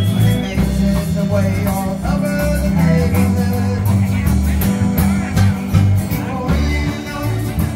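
A live acoustic band playing a rock song: acoustic guitars strumming, with a woman singing into a microphone over them.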